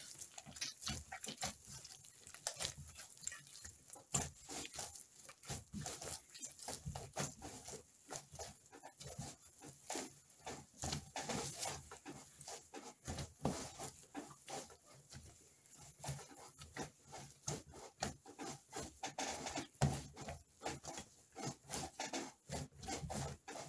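Sticky pulque bread dough being kneaded and worked by hand, giving irregular soft slaps and squelches.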